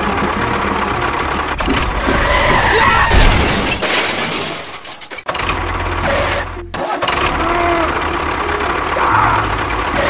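Tractor engine running, with a short drop about five seconds in; background music plays underneath.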